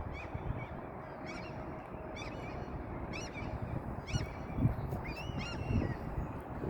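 Birds calling: a run of short, repeated calls, several a second at times, over steady background noise.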